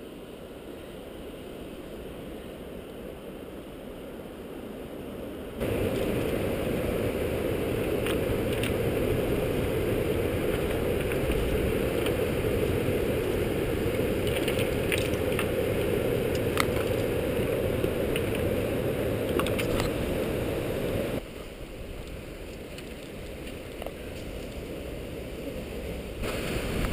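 Surf washing over a shingle beach: a steady rushing noise with scattered clicks of stones. It jumps louder about six seconds in and drops back abruptly about twenty-one seconds in.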